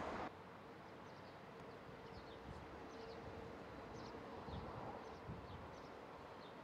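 Faint open-air ambience with small birds giving short, high, falling chirps scattered throughout, over a low steady hum. A brief rush of road traffic noise cuts off abruptly in the first moment.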